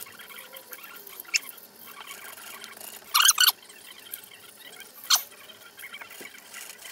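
Hand-sanding a small white cover piece: a faint scratchy rubbing, broken by short, sharp squeaks, the loudest a pair about three seconds in and another about five seconds in.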